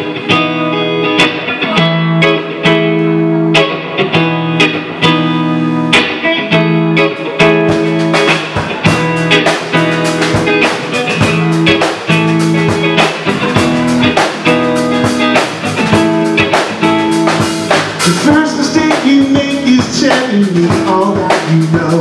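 Live rock band playing the instrumental intro of a song: electric guitar, electric bass and drum kit. The drumming grows busier about eight seconds in.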